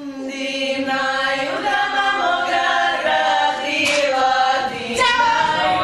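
A small group of girls' voices singing a traditional folk song together in harmony, with several held, gliding vocal lines at once.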